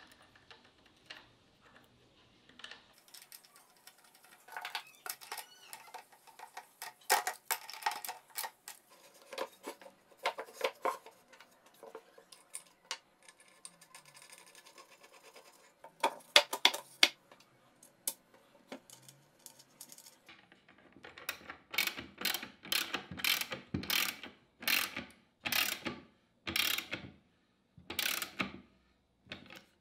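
Socket ratchet wrench tightening a wheel's axle nut: a steady run of short ratcheting strokes, about three every two seconds, in the last third. Before that, scattered small metal clicks and knocks as the wheel, washers and nut are fitted by hand.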